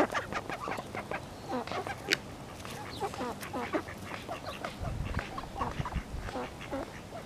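A group of mallard and domestic ducks giving a run of short quacks and soft chatter, with a low rumble about five seconds in.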